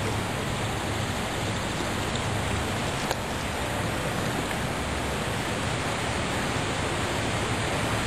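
Steady rushing noise of wind on the microphone, with a faint click about three seconds in.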